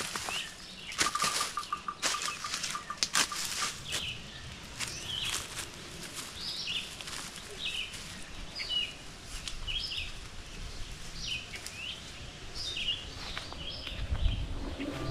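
Footsteps crunching on the forest floor for the first few seconds, then small birds chirping in many short, quick calls.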